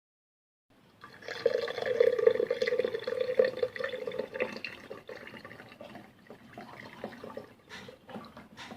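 Hot milk poured from a pan through a strainer into another vessel: a steady pouring stream starts about a second in, then thins to a dribble and drips, with a few light clicks near the end.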